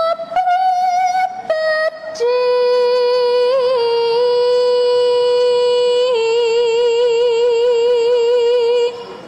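Background music of a woman's singing voice: a few short notes, then one long held note that begins to waver in vibrato about six seconds in and stops shortly before the end.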